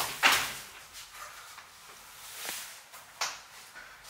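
A person moving about and climbing back into a mesh office chair: rustling and bumping. There is a loud noisy burst about a quarter second in and a single sharp knock a little past three seconds.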